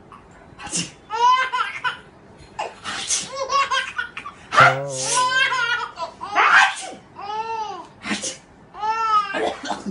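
A baby laughing hysterically in repeated bursts of chuckling, set off each time by a loud sneeze; about five sneezes and laughing fits alternate.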